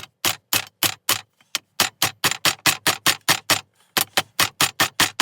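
Rapid, steady hammer blows with a big ball-end hammer on metal, driving a jammed cast-iron centre piece out of a scrap car compressor: sharp clanks about four a second, with a short break near four seconds in before the blows resume.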